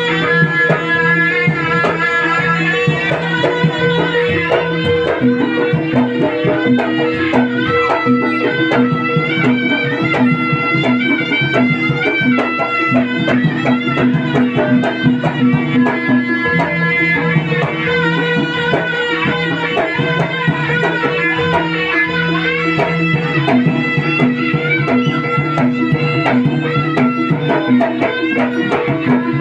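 Jaranan accompaniment music: a reedy wind instrument plays a wavering, ornamented melody over dense hand-drum strokes and a steadily repeating lower tone.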